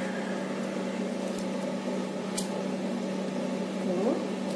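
A steady mechanical hum, with two faint clicks in the middle and a short rising tone near the end.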